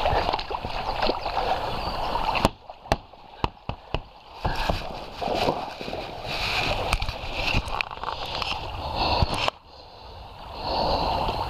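Shallow river water rushing and sloshing around an inflatable canoe as a paddler wades alongside it. A string of sharp knocks and bumps, about two to four seconds in, comes from the boat and its gear being handled.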